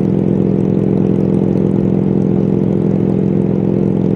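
A 1999 BMW R1100RT's boxer-twin engine drones steadily as the bike cruises on the highway, with no change in pitch.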